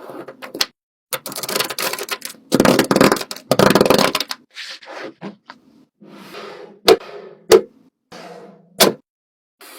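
Fidget toys being handled: bursts of crackly rustling through the first half, then a few sharp, separate clicks or snaps.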